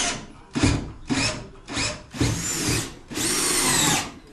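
Red cordless drill/driver run in bursts, several short ones and then two longer runs, its high motor whine dipping under load. It is driving screws through a metal joist hanger into a timber beam.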